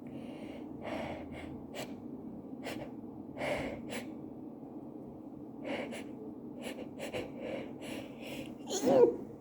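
A woman sniffling and drawing sharp, breathy breaths again and again, then a loud sneeze with a rising voiced build-up near the end. The sneezing is from allergies, by her own account.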